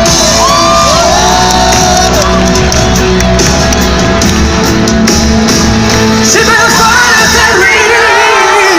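Live pop band music played loud in concert, with a voice singing in long sliding notes and crowd shouting that grows near the end.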